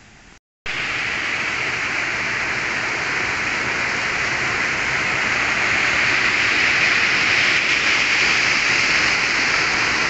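Rushing water of a small rocky mountain stream cascading over boulders, a steady hiss. It starts abruptly after a brief silence and grows a little louder about halfway through.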